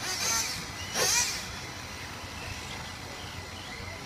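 Electric RC short-course trucks racing on dirt: two brief bursts of electric motor whine with tyre hiss, one at the start and one about a second later, their pitch sliding up and down, over a steady low background.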